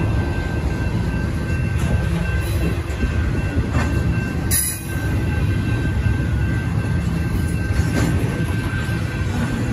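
Double-stack intermodal well cars of a freight train rolling past at a grade crossing: a steady, loud rumble of wheels on rail, with a faint, steady high-pitched ring over it and a sharp metallic clank about four and a half seconds in.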